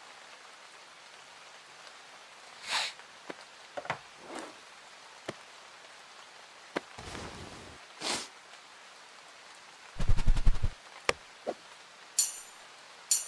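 Cartoon sound effects over a low hiss like light rain: a couple of soft airy whooshes and a few clicks, a quick run of knocks about ten seconds in, then a bright jingle of small bells near the end.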